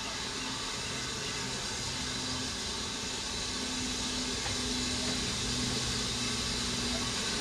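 Steam locomotive hissing steadily, with a faint low hum beneath it, the sound growing slightly louder.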